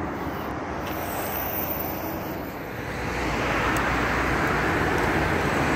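Steady road traffic noise from passing cars, growing louder about three seconds in.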